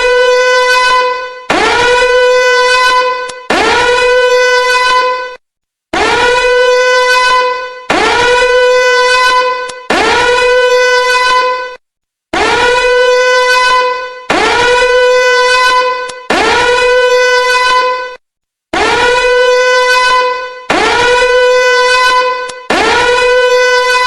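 Warning alarm sounding a loud, buzzy horn-like tone. Each blast swoops quickly up in pitch, holds steady for about two seconds and then fades. The blasts repeat in groups of three with a brief silent pause between groups.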